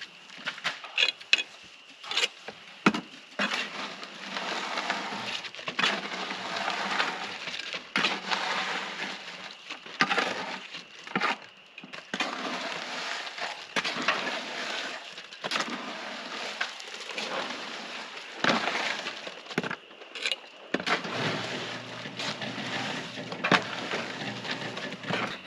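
Irregular crunching, scraping and knocking, with sharp impacts scattered throughout: hand work with materials.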